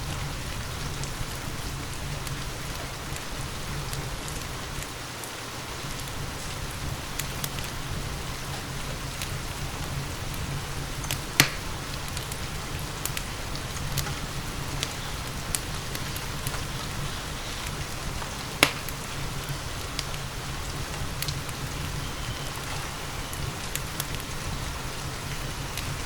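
Steady rain mixed with a crackling wood fire in a fireplace. Scattered small crackles run through the rain, and two sharp, loud pops stand out, several seconds apart.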